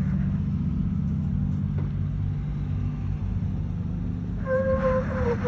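Vintage flat-fender Jeep engine running at a steady speed. A short high, whistle-like tone joins it near the end.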